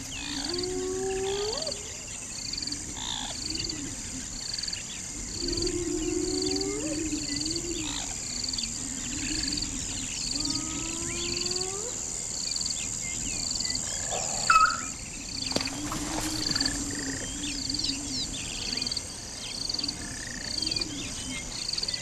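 Grassland insects: one chirping steadily, about three chirps every two seconds, over a steady high insect drone. Small bird chirps come and go, with repeated low calls that rise in pitch, and one brief louder call about two-thirds of the way through.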